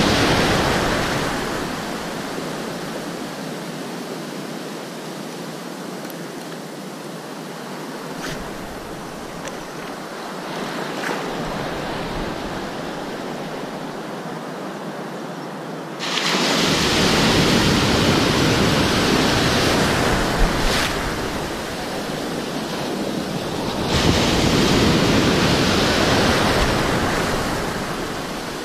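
Ocean surf breaking and washing around close at hand, a steady rush of foaming water. About halfway through a wave surges in suddenly and the wash grows louder, easing off and then swelling again near the end.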